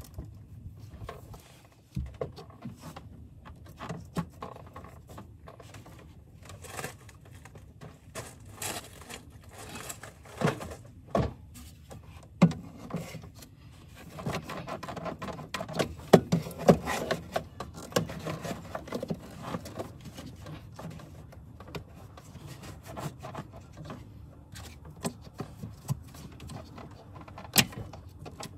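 Plastic air intake duct and rubber hose being handled and fitted back onto the engine: scattered clicks, taps and scrapes, busiest around the middle.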